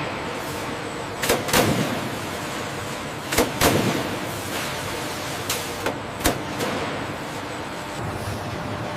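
Factory machinery: a steady mechanical hiss with seven sharp knocks, two close together a little over a second in, two more about three and a half seconds in, and three between five and a half and six and a half seconds in.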